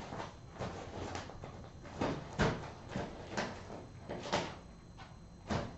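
Kittens at play making a scatter of irregular knocks and thumps on furniture and toys, the loudest about two and a half seconds in.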